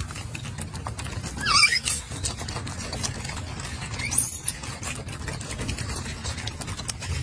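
Golden snub-nosed monkey giving two short, high-pitched squealing calls, the first wavering about one and a half seconds in, the second briefly about four seconds in, over faint clicks. The feeder takes the calls for fussing for food.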